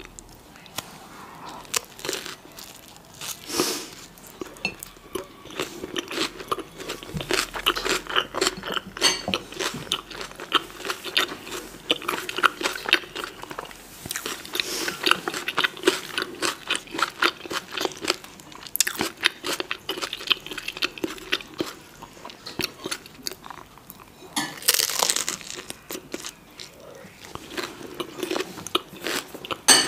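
Close-miked chewing of a bite of tortilla wrap filled with fresh vegetables: crisp vegetables crunching between the teeth in quick, irregular crackles, with wet mouth sounds. There is a brief hissing sound about five seconds before the end.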